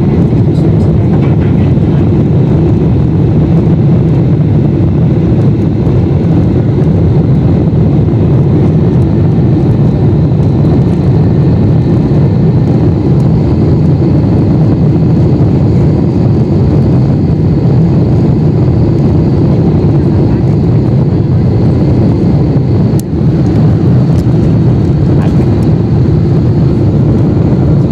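Steady, loud cabin noise inside a Boeing 747-8 airliner on final approach with flaps extended: a deep rumble of engines and airflow heard through the cabin window, with a faint high steady whine above it.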